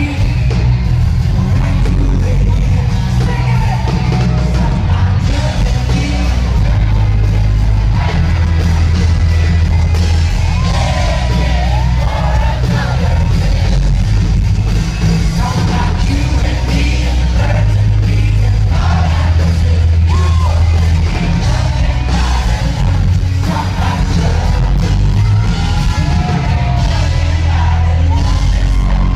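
A live country band playing with a male lead vocal over heavy booming bass.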